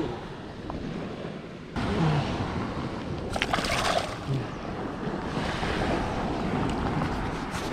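Surf washing onto a sandy beach, with wind buffeting the microphone. The noise jumps up suddenly a little under two seconds in, and a short louder burst comes about three and a half seconds in.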